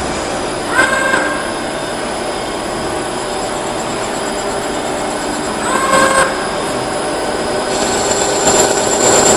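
16K30F335 CNC screw-cutting lathe running, a steady machine noise with a constant high whine. A short squeal comes about a second in and again about six seconds in.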